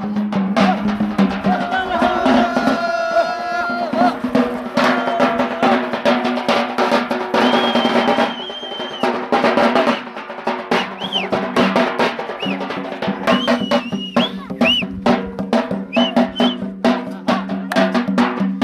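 Drums beating a fast, dense rhythm for a Yemeni dagger dance, over a steady low drone.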